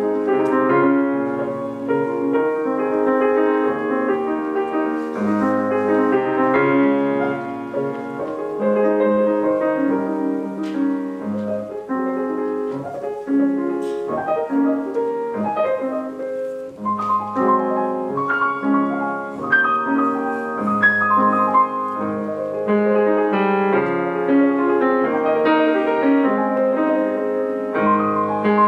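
Piano playing: a flowing piece of chords and a melody line, with no voice over it.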